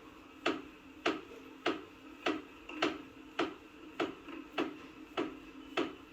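Melkin Sports Polmin indoor exercise bike's crank side clicking as it is pedalled: a sharp tick with a short ring about 1.7 times a second, ten in all. It is the sign of a manufacturing defect in the crank assembly, a noise that grew louder day by day and was fixed by replacing the parts there.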